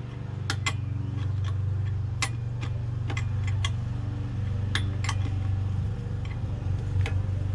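Scattered light metallic clicks and taps from brake shoes, springs and tools being handled on a motorcycle's front drum-brake plate, over a steady low hum.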